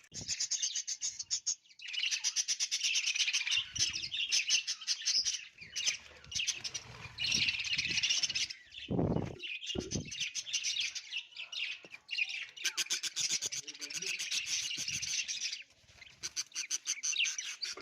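A colony of budgerigars chattering and chirping continuously in fast, high-pitched runs, with brief lulls. A short, lower-pitched noise comes about halfway through.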